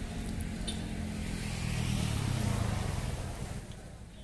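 A motor vehicle passing close by: a low engine rumble that swells about two seconds in and fades away near the end.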